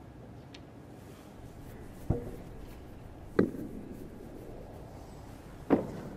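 Three sharp clicks of snooker balls over the low hush of a quiet arena, the second about a second after the first and the third about two seconds later. The last, near the end, is the cue ball striking the pink as it is potted.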